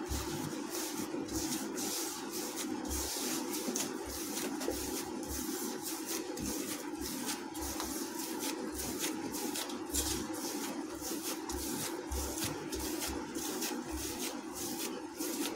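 Palm kneading soft chhena dough on a stainless steel plate: repeated rubbing and scraping strokes, with a steady low hum underneath.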